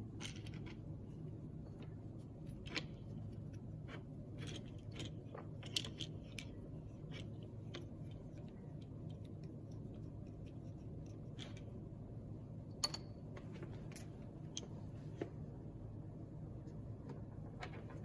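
Scattered light clicks, taps and small rattles of a screwdriver and the parts of an electric scooter's handlebar and brake lever being worked on and handled, with a few sharper knocks, over a steady low hum.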